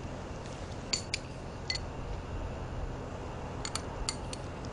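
Fork clinking lightly on a plate during a meal: a few short sharp clicks about a second in, and a quick cluster of four near the end, over a low steady background.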